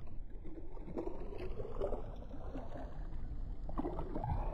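Shore ambience of shallow water gurgling and trickling over a tidal mudflat, with a steady low wind rumble on the microphone.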